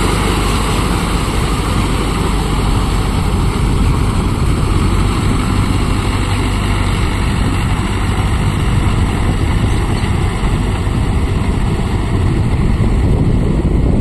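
Mahindra Yuvo Tech Plus 575 DI tractor's diesel engine running steadily, a deep, even rumble.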